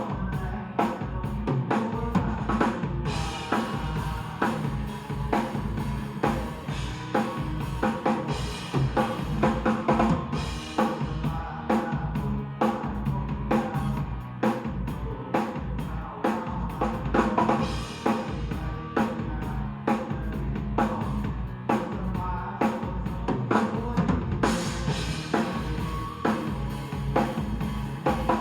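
Drum kit played continuously along with a recorded song, a steady groove of kick drum and snare strokes over the backing music.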